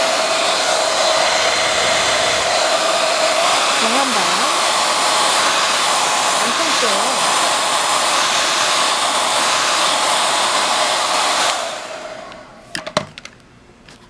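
JMW MA6001A hair dryer blowing steadily on its weak setting: an even rush of air with a faint motor whine. It is switched off about eleven and a half seconds in and dies away, followed by a few sharp knocks.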